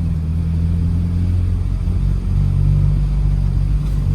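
A car engine running steadily, a low rumble with a steady hum.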